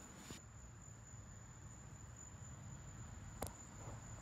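Faint steady low hum with a thin high whine over it, and a single sharp click about three and a half seconds in.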